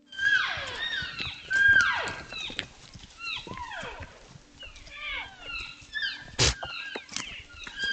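Herd of cow and calf elk calling to one another: many overlapping high-pitched mews and chirps, several sliding down in pitch. A sharp knock comes about six and a half seconds in.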